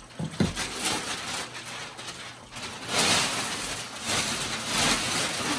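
Gift wrapping paper being ripped and crumpled, several loud rustling tears, the loudest about three seconds in and again near the end, with a short thump about half a second in.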